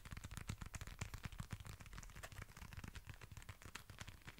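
Fingers handling and fiddling with a small leather pouch: a faint, dense run of tiny irregular clicks and scratches.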